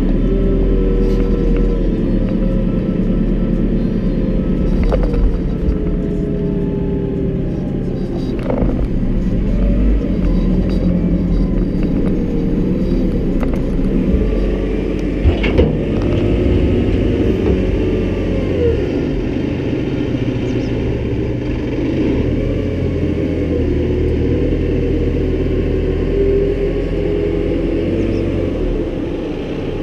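JCB 541-70 Agri Pro telehandler's diesel engine running steadily under load while the boom and bucket are worked, its pitch rising and falling. A few short knocks, one a few seconds in, one near eight seconds and one about halfway through.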